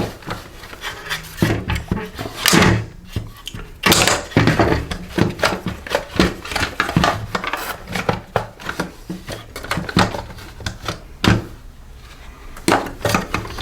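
Irregular clicks, knocks and light clatter of the disassembled Toro 60V handheld blower's hard plastic parts being handled on a workbench.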